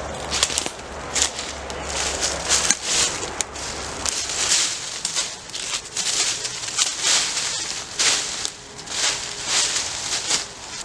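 Repeated rustling and crackling of dry leaves and twigs, in irregular bursts about once or twice a second.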